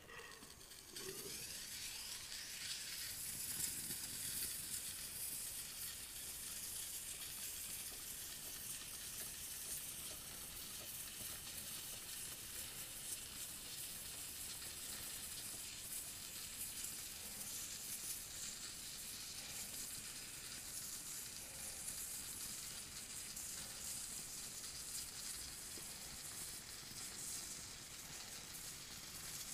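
Can of polyurethane expanding foam hissing steadily as foam is sprayed into gaps, the hiss starting abruptly about a second in.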